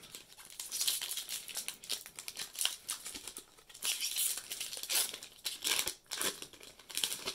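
Foil wrapper of a Magic: The Gathering set booster pack crinkling and tearing as it is ripped open by hand, in irregular crackly bursts.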